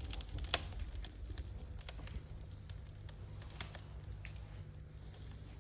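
Freshly lit wood fire in a fireplace crackling, with scattered sharp pops, over a low steady rumble.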